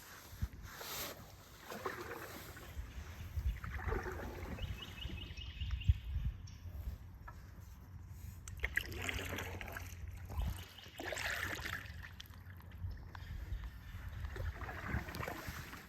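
Canoe paddle strokes dipping and pulling through the water, a swish every two to three seconds, over a low steady rumble. A short high trill sounds about five seconds in.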